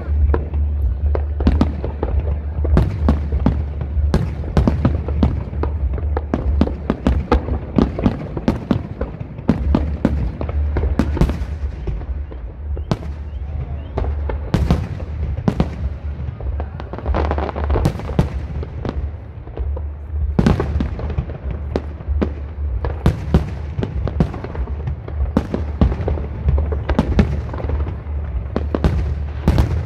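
Aerial fireworks display: a dense, unbroken run of shell bursts and sharp crackling bangs, many overlapping, over a steady low rumble.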